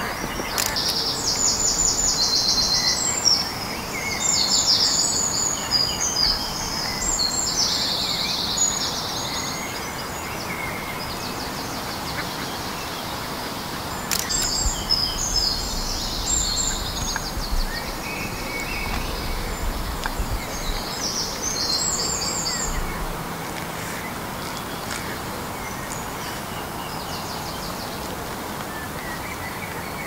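Small songbirds singing in bursts of rapid, high trilled and chirping phrases, in three spells with pauses between, over a steady background hiss.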